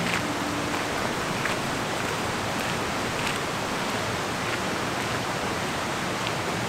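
Steady rushing of flowing water, like a mountain creek, holding an even level throughout.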